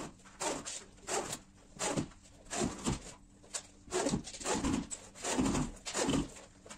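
Corded electric drill driving screws through gypsum board into wooden studs, in short repeated bursts with the motor pitch rising and falling.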